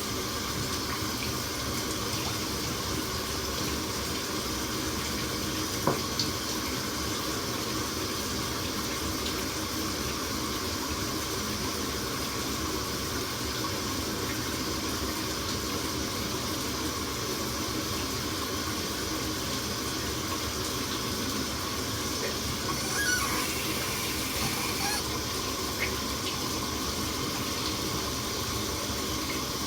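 Bathroom sink tap running with a shower running steadily behind it, while hands splash water onto a face. There is a sharper splash or knock about six seconds in, and a few more around twenty-three to twenty-five seconds.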